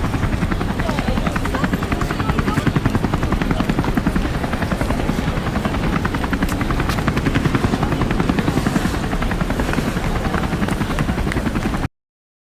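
Helicopter rotor chopping steadily, a rapid, even beat over a low rumble, stopping suddenly near the end.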